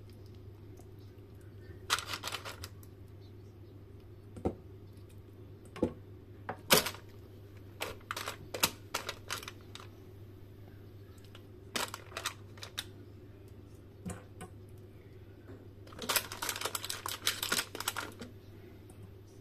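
Raw marinated chicken wings being placed by hand into a paper-lined air fryer basket: scattered soft taps and clicks, with a busier spell of crinkling paper liner and handling a couple of seconds before the end, over a steady low hum.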